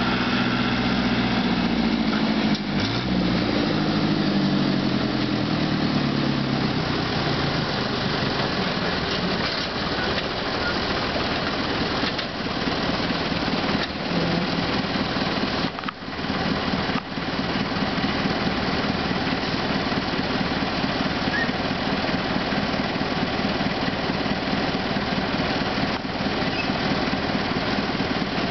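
Farm tractor engine and machinery running. The engine note drops over the first few seconds, then settles into a steady, dense mechanical din.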